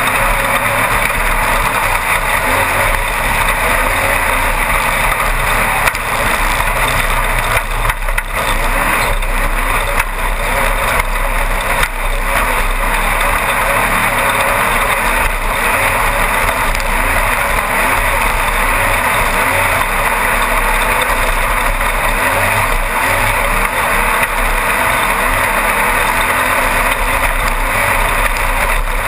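A Class 1-1600 desert race buggy heard from inside the car, its air-cooled 1600 cc Volkswagen-type engine running steadily at speed under a loud, dense rush of wind and terrain noise, with a few brief dips in level.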